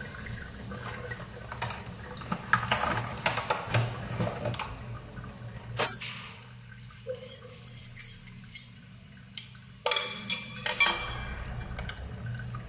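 Handling noises of a new chrome kitchen faucet being taken out of its blister packaging and fitted to the wall outlet: a run of clicks, rustles and light knocks, a sharp click about six seconds in, a quieter spell, then more clicks and knocks near the end.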